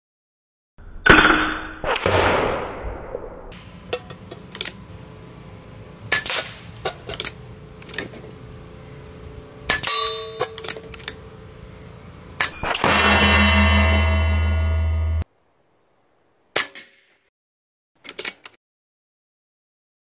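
Ataman M2 Ergonomic .25-calibre PCP air rifle shots and pellets striking metal targets with clangs and dings, broken by abrupt cuts to silence. A loud steady buzzing tone runs for about two and a half seconds past the middle and stops suddenly.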